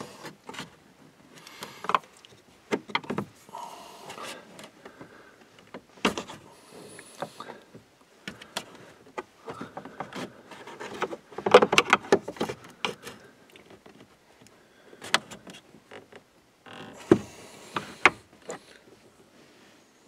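Screwdriver prying and scraping at a plastic dashboard trim panel: scattered clicks, creaks and small knocks, with a busy burst of rapid scraping and clicking about halfway through.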